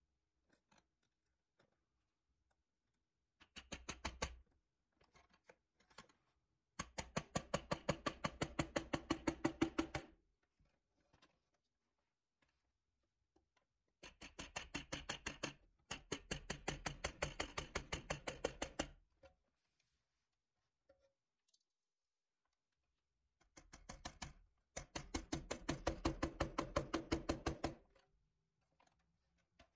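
Rapid, evenly spaced mechanical clicking, about ten clicks a second, in four runs of one to five seconds separated by pauses.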